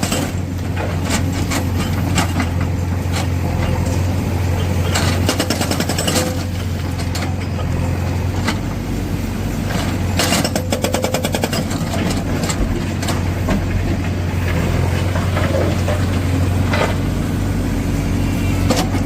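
Tata Shinrai backhoe loader's diesel engine running steadily, with a few spells of its hydraulic breaker hammering in rapid, even blows.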